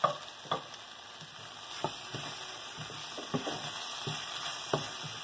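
Soya chunks and onion-tomato masala sizzling in a stainless steel pan, stirred with a wooden spatula that knocks against the pan every second or so.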